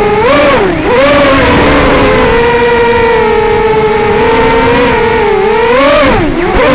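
A quadcopter's four Emax 1804 2300kv brushless motors spin 5x3 propellers with a loud, steady, high-pitched buzz. The pitch swoops down and back up twice, once shortly after the start and once near the end, as the throttle is eased off and opened again.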